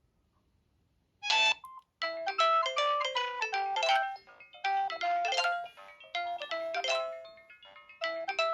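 Samsung SGH-D500 mobile phone playing a polyphonic ringtone. A short blip comes about a second in, then a bright melody starts about two seconds in and repeats its phrase roughly every three seconds.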